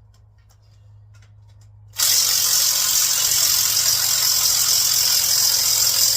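Loud, steady hiss of compressed air starting abruptly about two seconds in.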